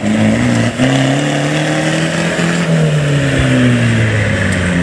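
Modified off-road 4x4's engine under throttle as it drives across a dirt course: the engine note climbs over the first couple of seconds, holds, then drops back toward the end.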